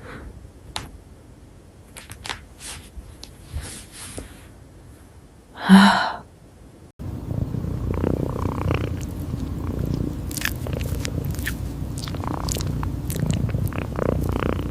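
A domestic cat purring in a steady low rumble that starts about halfway through, with fine clicks over it. Before that there are scattered small clicks and one short loud sound.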